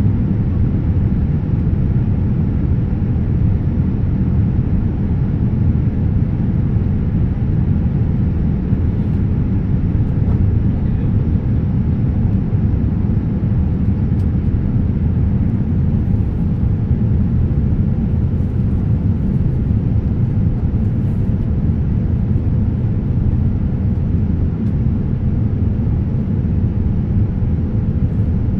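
Steady cabin noise inside a Boeing 787-9 airliner descending on approach: an even low rumble of engines and rushing air, with a faint steady hum running through it.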